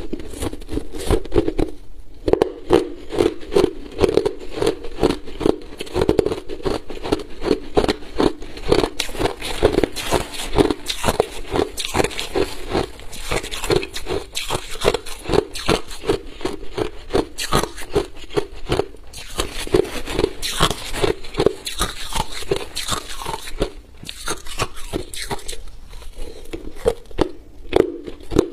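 Crushed clear ice crunched between the teeth in rapid, continuous crackling bites, close to a clip-on microphone.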